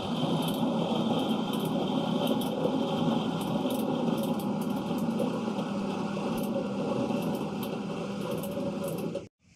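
Engine of a borewell drilling rig running steadily, cutting off abruptly about nine seconds in.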